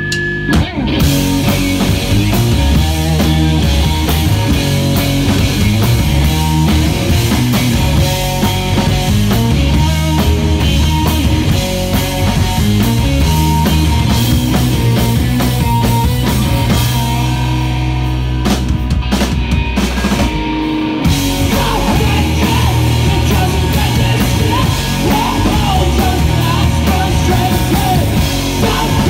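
Live rock band playing loudly: electric guitar, bass guitar and a drum kit. The cymbals drop out for a few seconds past the middle, then the full band comes back in, with a voice singing toward the end.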